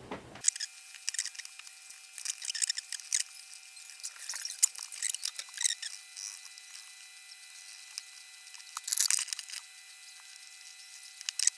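Thin-sounding small clicks, taps and scrapes of parts being handled as an OLED screen module is fitted to the back of a front-panel plate, with a longer scraping rustle about nine seconds in.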